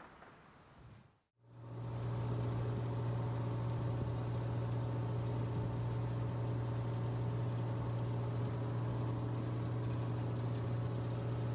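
A boat's engine running at a steady speed, a constant low hum. It cuts in after a brief silence about a second and a half in.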